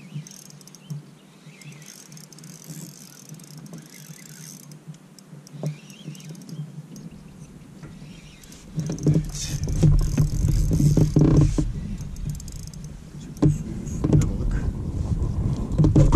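Spinning reel being cranked while a hooked northern pike is played on a bent rod, with mechanical clicking from the reel. About halfway through, loud low rumbling and knocking comes in and goes on to the end.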